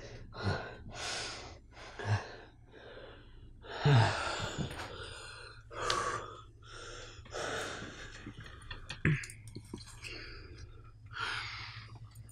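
A man breathing heavily, with gasps and sighing exhales about once a second, catching his breath after a panic.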